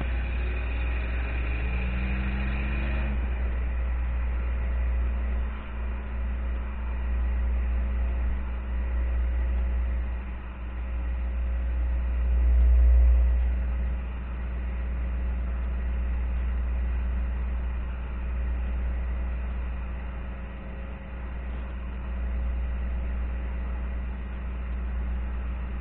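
A Pontiac Trans Am's LT1 5.7-litre V8 and road noise heard from inside the cabin while driving: the engine note climbs in pitch for about three seconds, then settles into a steady low drone at cruise, swelling louder for a moment about thirteen seconds in.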